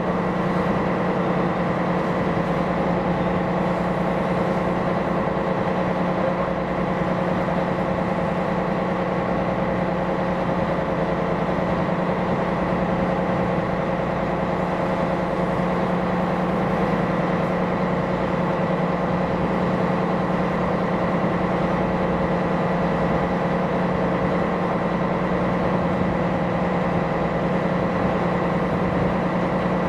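Ship's diesel engine running steadily: an even low hum with fixed higher tones above it, unchanging in pitch or loudness.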